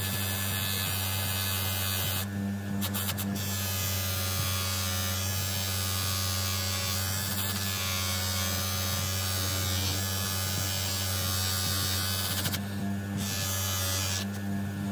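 Electric bench polisher running with a steady mains hum while a brass clock-winder key is pressed against its spinning buffing wheel, giving a constant rushing rub. The rub breaks off briefly about two seconds in and twice more near the end, as the piece comes off the wheel, while the motor hum carries on.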